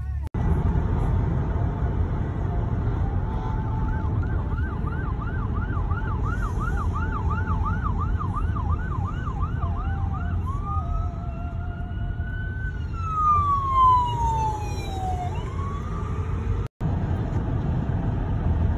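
Emergency vehicle sirens: a fast yelp of about three sweeps a second, then a slower rise and fall, with a second siren overlapping about two-thirds of the way in. Under it runs a steady low rumble of engine and road noise from the moving car.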